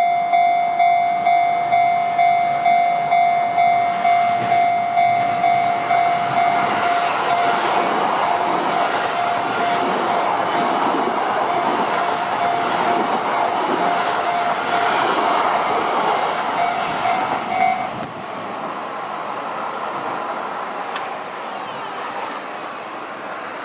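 Level-crossing warning alarm ringing in a steady repeated ding, about two strikes a second, while a Sotetsu Line electric train runs over the crossing with a rising rush and rumble. The alarm cuts off suddenly about 18 seconds in as the train clears, leaving a quieter fading rumble.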